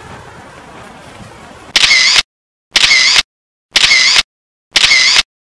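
Camera shutter sound effect, added in editing, fires four times about once a second, each a loud half-second shot followed by dead silence. Before it there is low background noise.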